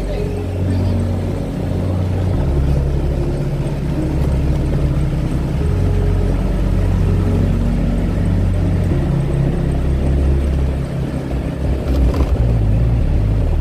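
Motorbike engine running while riding at low speed through town, with road and wind noise. Its pitch shifts up and down a little every few seconds with the throttle.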